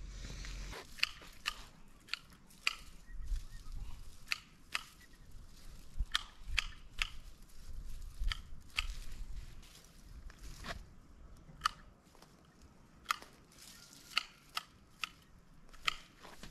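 Hand pruning shears snipping plant stems: sharp, irregular clicks about one or two a second, with rustling of the plant material in between.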